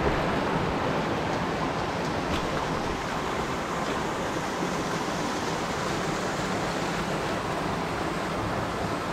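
Mountain torrent rushing steadily over rocks, an even hiss of flowing water.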